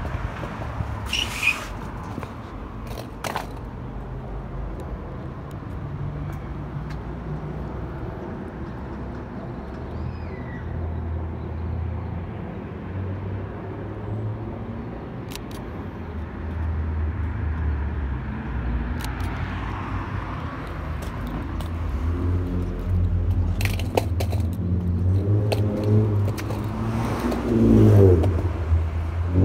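Skateboard wheels rolling over street and sidewalk pavement: a steady low rumble with sharp clicks now and then as the wheels cross cracks and joints. It gets louder near the end as the board speeds up along the sidewalk.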